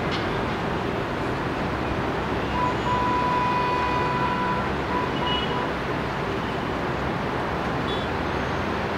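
Steady wash of distant city road traffic and rail noise. A thin high tone sounds for about three seconds, starting about two and a half seconds in.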